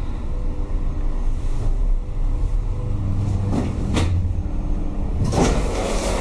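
Hydraulic lift's pump motor, on a 1984 Valmet hydraulic lift, running with a steady low hum during a ride. A couple of sharp clicks come about three and a half to four seconds in, and a louder noisy clatter near the end.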